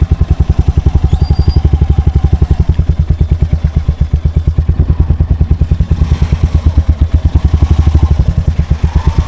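Royal Enfield Hunter 350's single-cylinder four-stroke engine running at a steady low speed with an even thumping beat, about ten pulses a second.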